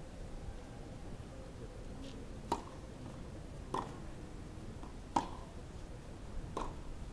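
A tennis ball struck by rackets: a serve and then a rally, four sharp hits about one and a half seconds apart, the third the loudest.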